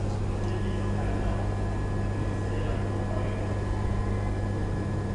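Old KONE elevator running: a steady electric hum with a thin, high, even whine that starts about half a second in.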